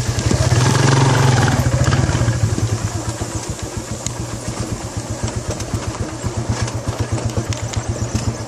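Motorcycle engine running under load, rising to its loudest about a second in, then settling to a steadier, lower throttle.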